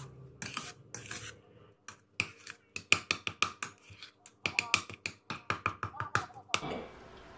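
Metal spoon clicking and scraping against a plastic mixing bowl as it stirs thawed strawberries and sugar into a wet mash for strawberry syrup, in a quick run of about four or five clicks a second. It stops near the end, leaving low room noise.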